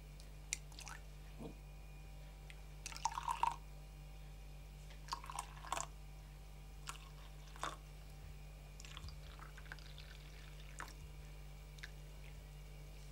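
Faint, scattered clicks and small metal clinks of a stainless steel teapot and its lid being handled, loudest about three seconds in, then tea trickling from the spout into a ceramic mug toward the end. A low steady hum runs underneath.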